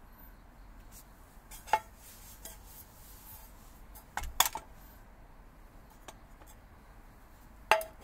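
Sharp metallic clinks of small metal parts being handled and set down: one clink, then a quick cluster of several about four seconds in, then two more near the end, over a low steady background hiss.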